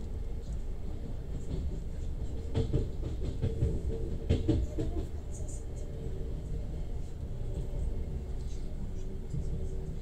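Passenger train running, heard from inside the carriage: a steady low rumble with a faint hum, and a few sharp knocks between about two and a half and five seconds in.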